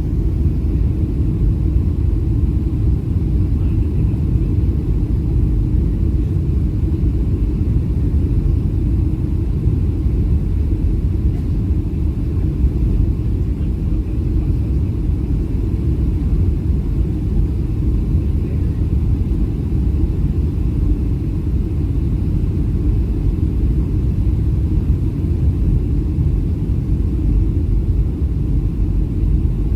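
Steady low rumble of a Boeing 737-700 cabin in flight: engine and airflow noise, unchanging throughout.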